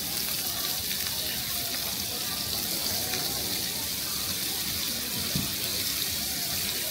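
A steady rushing hiss, with faint voices in the background and a small knock about five seconds in.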